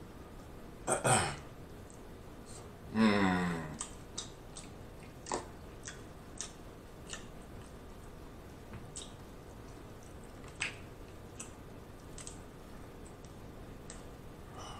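Close-up eating sounds of a man chewing king crab meat: scattered small wet mouth clicks and smacks. There are two short, louder vocal sounds about one and three seconds in, the second falling in pitch.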